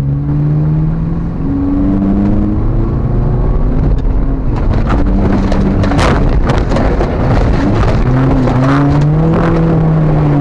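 Car engine running while driving, its pitch rising and falling with the revs and dipping then climbing again about eight seconds in. A few sharp knocks come about six seconds in.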